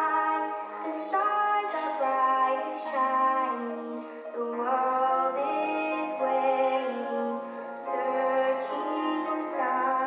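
Slow music with a woman singing over instruments, the notes changing about once a second.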